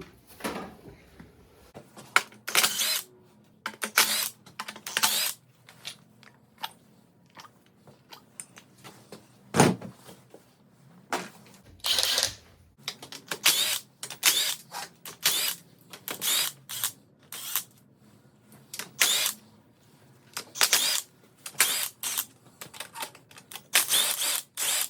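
Ratchet wrench clicking in short bursts, with pauses between, while valve cover bolts are worked loose on an engine being torn down. One louder knock of metal on metal about ten seconds in.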